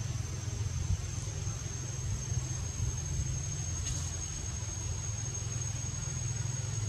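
Steady outdoor background: a continuous low rumble under a thin, steady high whine of insects.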